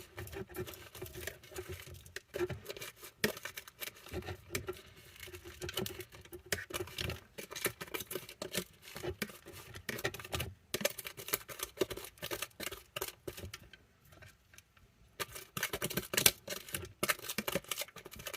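Damp substrate being mixed and scooped by hand into a millipede enclosure: an irregular run of rustling, crackling and pattering, with a short pause about two-thirds of the way through.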